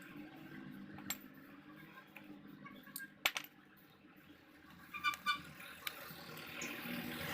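A few sharp clicks and knocks, with a cluster of light metallic clinks about five seconds in, over a faint background.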